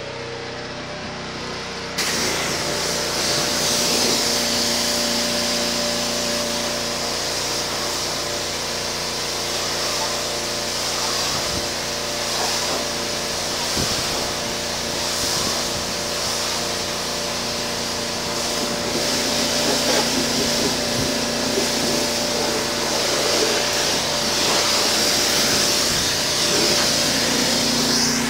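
Pressure washer running, its wand blasting water onto concrete in a steady loud hiss over the machine's hum. The spray starts suddenly about two seconds in.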